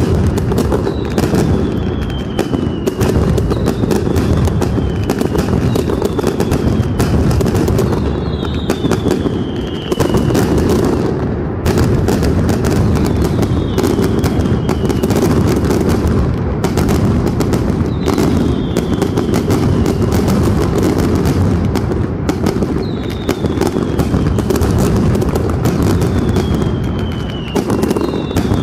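Mascletà: strings of ground firecrackers (masclets) going off in a dense, continuous rapid-fire barrage of bangs. A falling whistle cuts through every few seconds.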